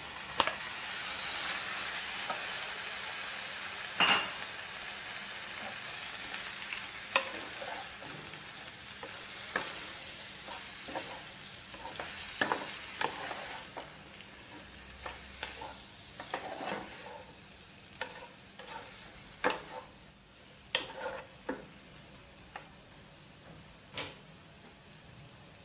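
Boiled macaroni and chopped vegetables sizzling in hot oil in a pan while a spatula stirs and tosses them, with frequent sharp knocks and scrapes of the spatula against the pan. The sizzle is loudest in the first seconds after the pasta goes in and dies down gradually.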